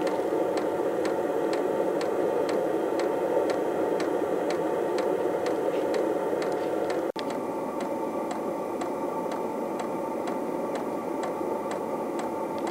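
Diesel air heater running: a steady rushing from its combustion fan and burner, with the fuel dosing pump ticking about twice a second.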